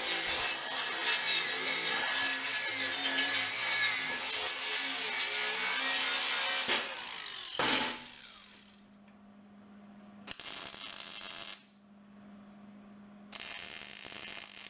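Angle grinder grinding a steel plate for about seven seconds, then a single clank as it is set down. After that a MIG welder lays two short tack welds, each a little over a second long, over a steady low hum.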